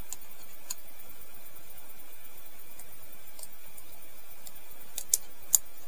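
Light clicks of the Ontario Rat-1 folding knife's steel parts knocking together as blade and liners are fitted by hand: a few faint ticks, then two sharper clicks about five seconds in, over a steady hiss.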